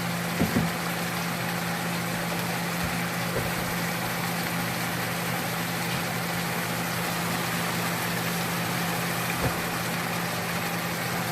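Pork, peppers and a wine sauce sizzling and simmering in a hot pan, a steady hiss over a steady low hum. There are a few light knocks, two near the start and a couple later.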